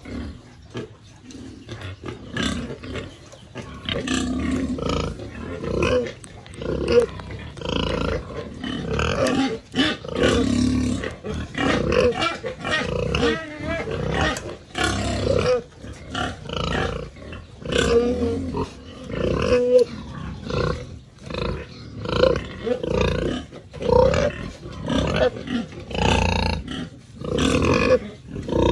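Domestic pigs, a sow among them, calling over and over with loud screaming grunts, about one call a second: the sow is hungry and calling for food.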